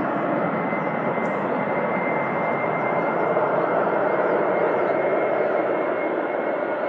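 Airliner engines running: a steady rush of engine noise with a thin high whine, swelling slightly midway.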